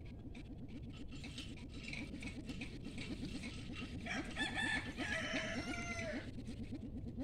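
A rooster crowing once, about four seconds in, a call lasting around two seconds. Under it runs a steady, low, fast pulsing sound.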